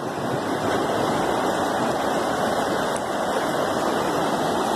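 Steady rush of floodwater filling a street, with a classic Volkswagen Beetle ploughing through it and pushing a wave of water ahead.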